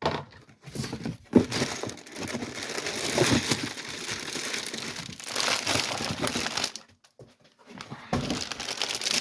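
Packaging crinkling and rustling as it is handled and torn open. It comes in two stretches, with a brief pause about seven seconds in.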